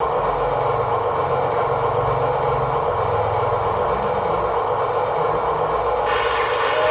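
An engine running steadily with a low, uneven rumble, as of construction machinery at work; a brighter hiss joins about six seconds in.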